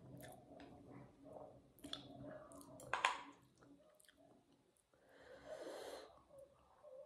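Soft close-up chewing of spicy instant noodles, with small wet mouth clicks, a sharp sound about three seconds in, and a breathy hiss about a second long near the end.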